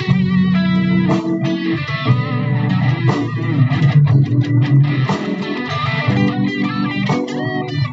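Music led by an electric guitar melody with bent and wavering notes over bass guitar.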